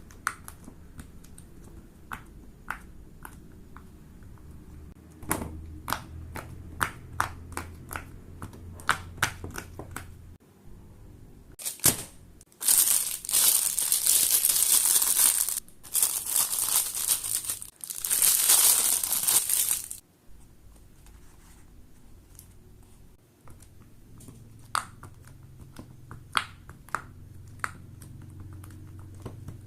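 Fidget toys being handled: scattered sharp little pops and clicks, coming about twice a second for a stretch, with several seconds of loud plastic crinkling and rustling in the middle.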